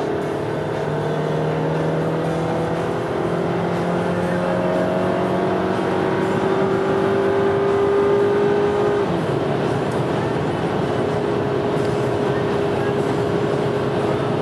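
Dodge Journey's 2.4-litre four-cylinder engine at full throttle, heard from inside the cabin, its pitch climbing steadily as the SUV accelerates. About nine seconds in the pitch drops suddenly as the four-speed automatic upshifts, then it starts climbing again slowly.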